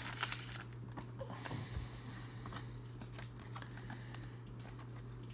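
Faint rustling and light taps of baseball trading cards being handled, over a steady low hum.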